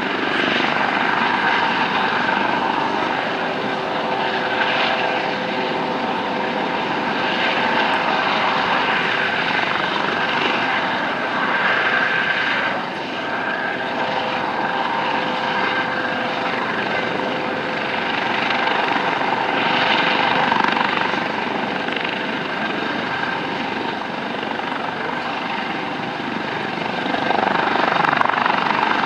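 US Coast Guard MH-65 Dolphin helicopter hovering low, its rotor and turbine engines running with a steady whine, growing a little louder near the end.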